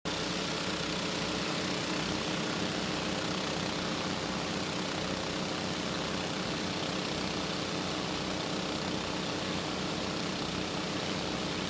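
An engine running steadily at an even pitch, a constant mechanical hum that starts abruptly.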